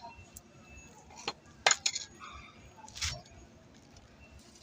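Sharp metallic clinks of tools and alternator parts being handled during disassembly: four or five separate knocks, the loudest a little under two seconds in.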